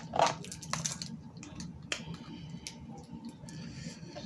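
Close-miked eating of snow crab legs: wet chewing and smacking, with a few sharp clicks and cracks in the first two seconds, loudest right at the start.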